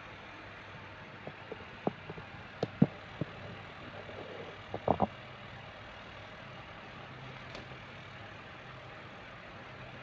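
Steady low hum, with a run of light clicks and knocks from about one to five seconds in, the loudest near the middle.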